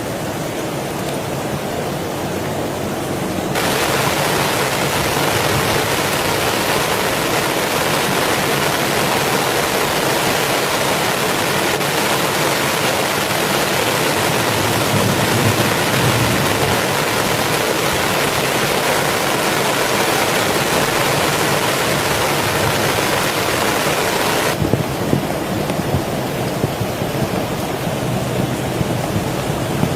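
Heavy rain falling in a steady rush. About four seconds in, a much denser, louder hiss of downpour sets in. It cuts off suddenly near 25 s, leaving lighter rain with scattered drop ticks.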